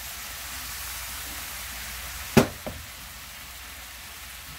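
Soy sauce, mirin and garlic sizzling and bubbling in a hot nonstick wok, a steady hiss. About halfway through comes one sharp knock, with a lighter one just after.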